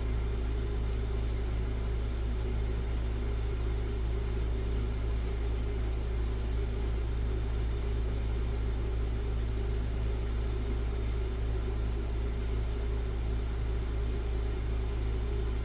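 Steady low background hum with a faint even hiss, unchanging throughout, with no other sound on top.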